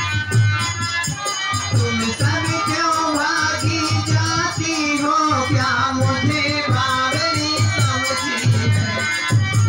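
A high voice sings a folk-style song line over a steady drum beat and rattling, shaker-like percussion.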